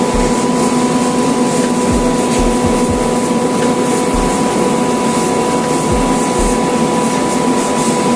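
Screw air compressor running loaded with its cooling fan on, building pressure: a loud, steady mechanical drone with a held hum in it.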